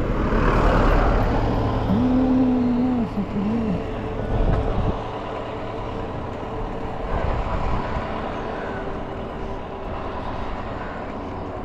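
Wind on the microphone and road noise while riding a bicycle along a paved road with traffic about. A louder wash of passing-vehicle noise comes in the first second or two, and a short wavering tone sounds about two to four seconds in.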